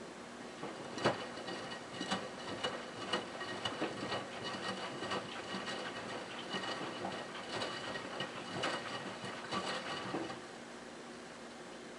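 Miele W3033 front-loading washing machine's drum turning in the wash, the wet cotton blanket tumbling and water sloshing with irregular taps and splashes. The drum stops about ten seconds in.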